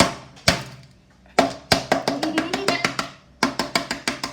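Wooden spoon pounding Oreo cookies to crush them: a run of sharp knocks, a few spaced hits at first and then quicker ones, about four or five a second, in the second half.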